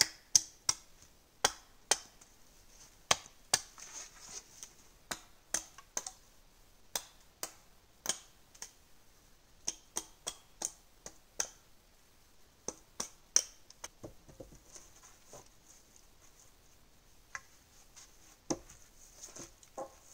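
Sharp, separate chopping strikes of an axe knocking the branches off dead tree poles, irregular at about one to two a second, thinning out after about thirteen seconds.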